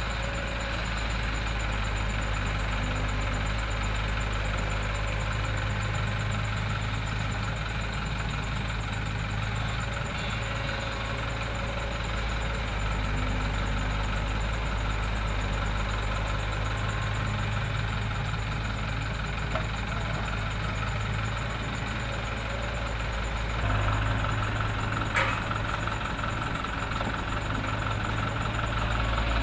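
Diesel engines of a Doosan DX55 excavator and a dump truck running steadily while the excavator digs and loads soil. The engine sound grows louder near the end, followed by a single sharp knock.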